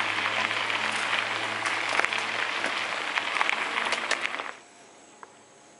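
Bicycle riding noise on a rough gravel track: a dense crackle of tyres over loose stones with wind on the camera microphone. It cuts off suddenly about four and a half seconds in, leaving a quiet background with a faint high insect drone and a few light ticks.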